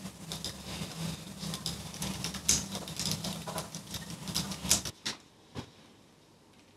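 Computer keyboard typing and mouse clicks: irregular light clicks over a low steady hum. Both cut off about five seconds in, leaving near silence with a couple of faint knocks.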